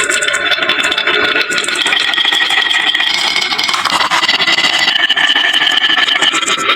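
Small toy vehicles rolling fast down a wooden HABA marble-run slope, making a dense, continuous rattling clatter with a high ringing whir from the wheels.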